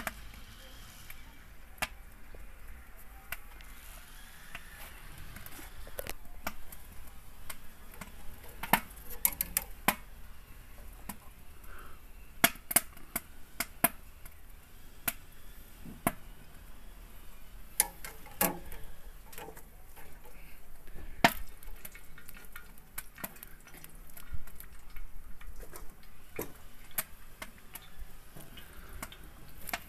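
Hot oil sizzling on a smoking steel saj griddle as whole peeled potatoes fry on it, with irregular sharp pops and crackles throughout.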